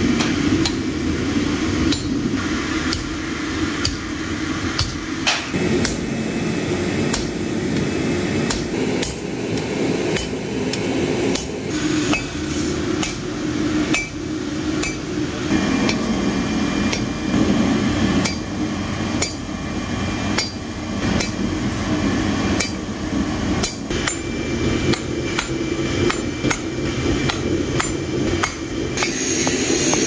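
Hand hammer striking red-hot steel on an anvil, forging the wavy blade of a kris dagger: a long string of sharp metallic blows at an uneven pace of about one to two a second, over a steady low hum.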